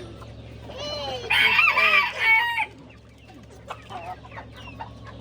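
Chickens: a rooster crows loudly about a second in, for roughly a second and a half, with hens clucking in short calls before and after.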